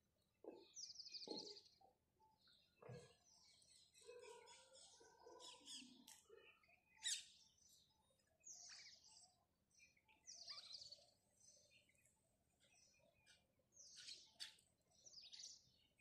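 House sparrows chirping faintly, short runs of high chirps every second or two, the sharpest about seven seconds in, with a few softer, lower notes in the first half.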